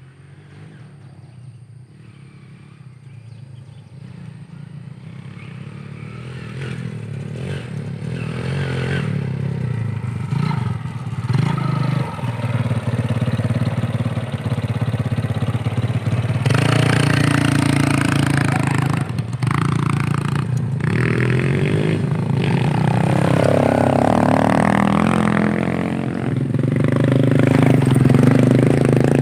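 Motorcycle engine running and revving, growing louder over the first several seconds, its pitch rising and falling in the second half.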